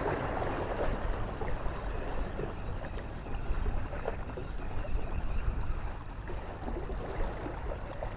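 Sea water lapping and sloshing at the water's edge: a steady wash with small irregular splashes.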